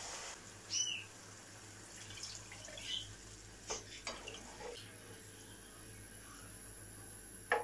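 A spatula stirring thin tomato sauce in a frying pan: faint sloshing of the liquid, with a few light knocks of the spatula against the pan.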